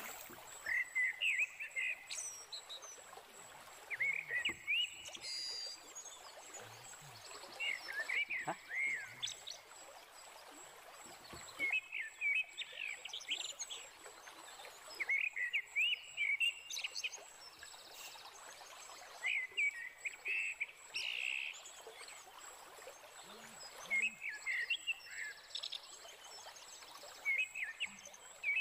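Swamp-forest wildlife chirping in short bursts of quick rising and falling calls, recurring every few seconds, over a thin steady high-pitched whine.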